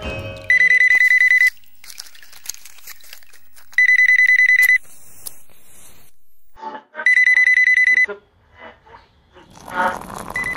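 An electronic ringer trilling in three rings, each about a second long and about three seconds apart, with faint clicks between the rings.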